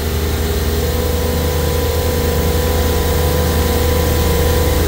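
Supermarket refrigeration compressor rack running: a steady, loud machinery hum with a deep drone and a held tone above it that rises slightly about a second in.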